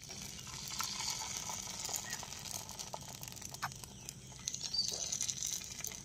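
Dosa batter sizzling on a hot miniature griddle as it is poured and spread, a steady hiss with scattered small crackles.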